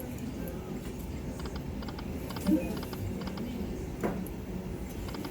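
Lightning Link Magic Pearl slot machine reels spinning, with light clicking ticks over the steady hum of a casino floor. A sharper click comes about halfway through and another about four seconds in.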